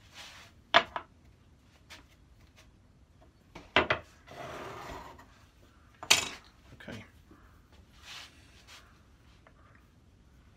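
Plywood parts of a saw-sharpening vice clamp knocking and sliding against each other as they are handled and fitted on a workbench: a few sharp wooden knocks, with a short scraping slide about four seconds in.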